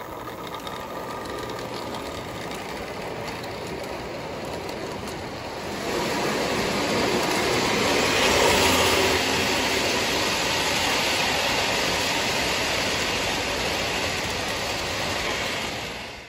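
Lionel 783 Scale Hudson O gauge model steam locomotive running along the track with its freight train, a steady mechanical rumble of motor and wheels on rail. It grows louder about six seconds in as the engine comes close and passes, then fades out near the end.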